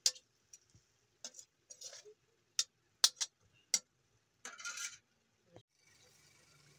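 Metal spatula knocking and scraping against an iron wok as pork curry is stirred: sharp clinks roughly every half second with a short scrape near the end. In the last second a faint steady hiss of the curry simmering takes over.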